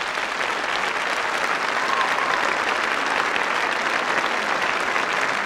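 Large concert-hall audience applauding steadily, many hands clapping at once.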